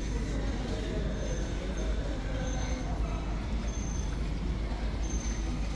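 Steady city street noise: a low traffic rumble with a few faint, brief high-pitched squeaks.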